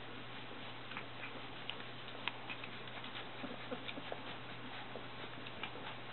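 A litter of golden retriever puppies making scattered faint squeaks and small scratching, shuffling noises as they move about, over a steady low hum.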